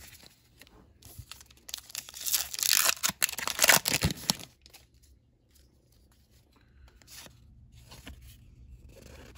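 A 2021 Topps Heritage High Number baseball card pack's crimped wrapper being torn open by hand, a loud crinkly tearing for about two and a half seconds. Then faint rustles and clicks as the cards from the pack are handled.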